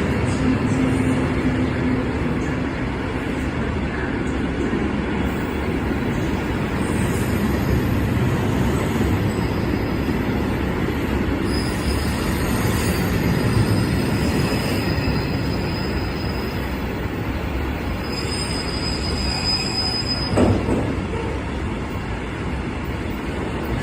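Freight train wagons rolling steadily past, with a continuous rumble of wheels on rail. Thin high-pitched wheel squeals come in about halfway through and again shortly before a single louder clunk near the end.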